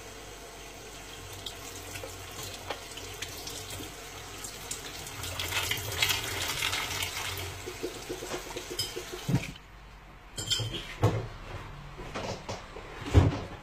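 Kitchen tap running into a sink while dishes are rinsed under it, with small clinks. About two-thirds of the way in the water stops, and a few sharp knocks follow.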